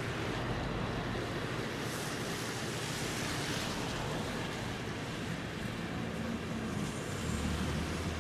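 Container flat wagons of a freight train rolling past, a steady noise of steel wheels on the rails, with a low hum coming in near the end.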